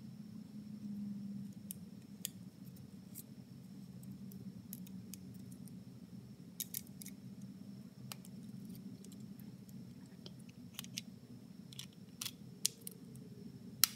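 Scattered sharp clicks and light taps of small metal and plastic vaporizer parts being handled and fitted together by hand, over a steady low hum. The loudest click comes near the end.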